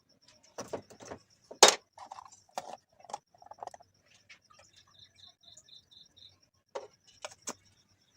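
Spoon clinking and tapping against a bowl and spice containers as salt, turmeric and baking powder are spooned into gram flour, with a few soft scrapes. A faint, fast, high ticking runs underneath.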